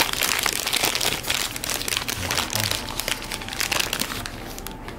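Paper burger wrapper crinkling and rustling as hands fold it back around the burger, easing off near the end.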